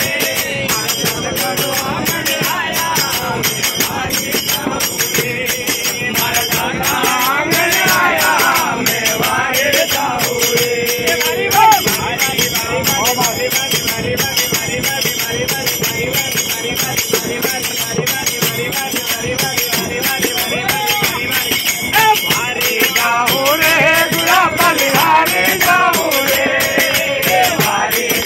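A group of men singing a Rajasthani devotional bhajan together in unison. Hand clapping and jingling small brass hand cymbals keep a fast, even beat.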